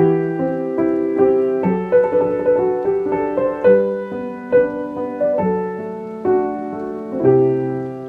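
Slow solo piano music, a note or chord struck about once a second, each ringing on and fading before the next.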